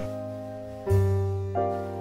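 Slow piano music, with a new chord struck about a second in and ringing on.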